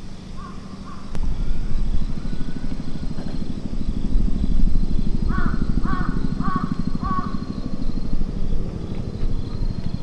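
A crow cawing: two faint caws near the start, then four louder caws in quick succession about halfway through. Underneath is a steady low engine rumble that grows louder about a second in.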